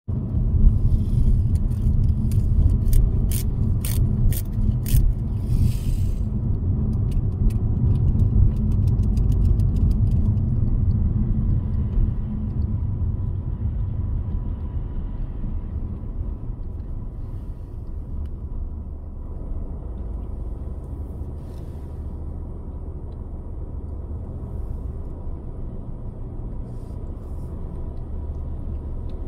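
Low, steady rumble of a car on the road, engine and road noise together. A run of sharp ticks comes in the first ten seconds, and the rumble grows quieter in the second half.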